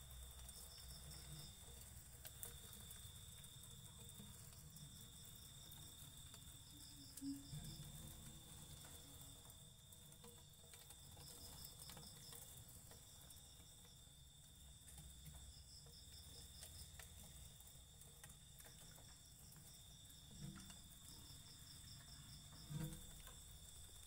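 Crickets singing faintly: a steady high trill that breaks off briefly now and then, with short bursts of rapid chirps every few seconds. A few soft thumps come from handling.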